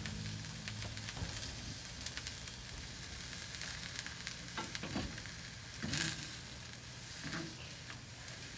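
Quiet, steady crackly hiss with a few soft, brief sounds about halfway through. The last of the background music fades out in the first second.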